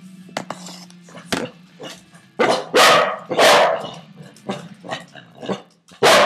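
Puppies barking: a few loud short barks about two and a half to four seconds in, and another near the end.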